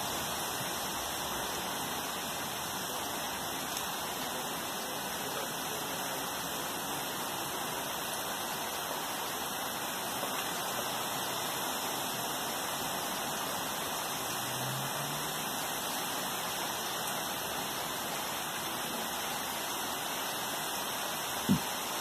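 Steady summer rain falling on trees, grass and a paved path: an even, unbroken hiss. A single brief knock sounds near the end.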